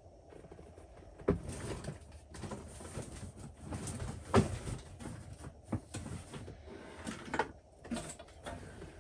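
Objects being handled and moved about on a workbench: irregular knocks, clacks and rustling, with a sharp knock about a second in and the loudest one about halfway through.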